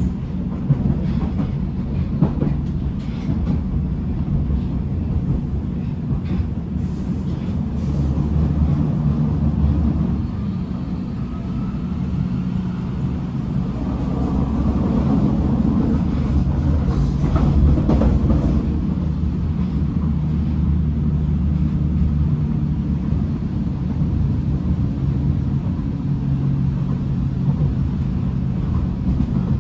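Hamburg U-Bahn DT5 train heard from inside a passenger car while running: a steady low rumble of wheels on rail, with a few sharp clicks in the first seconds.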